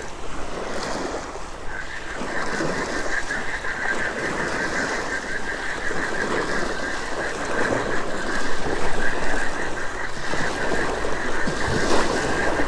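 Spinning reel being cranked to retrieve line, its gears whirring with a fast, even ticking that starts about two seconds in, over small waves lapping on the shore.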